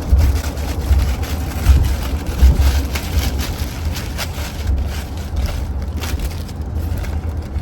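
Steady low road rumble of a car heard from inside the cabin, with irregular crinkling and rustling of food wrapping or a paper bag being handled and opened.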